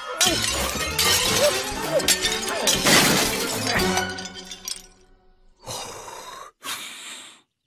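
Cartoon sound effects of a loud crashing, clattering racket like breaking dishes, lasting about four seconds. Near the end come two short breathy puffs, a cartoon dog blowing at a birthday-cake candle to put it out.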